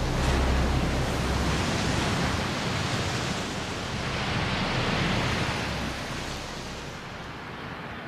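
Turbulent water churning and surging with spray, a steady rushing noise with a deep rumble in the first couple of seconds, easing off over the last two.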